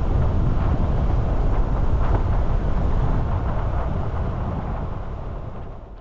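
Car driving on a paved road, heard from inside the cabin: a steady low rumble of road and engine noise that fades out near the end.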